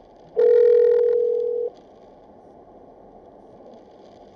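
A telephone tone on the 911 call: one steady beep held for about a second and a quarter, brighter in its first half, over faint steady road noise from the car.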